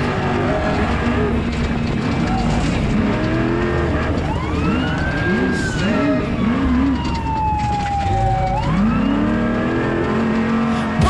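Off-road race vehicle's engine running hard. Its revs rise and drop several times in quick succession about halfway through, and a high whine falls slowly.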